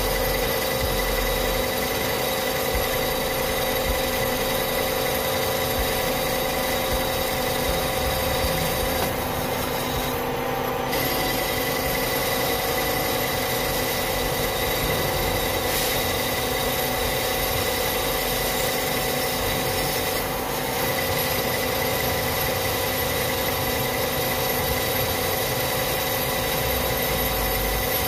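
Metal lathe cutting a steel bushing: the machine runs with a steady hum and whine while the tool shears off a continuous hissing chip.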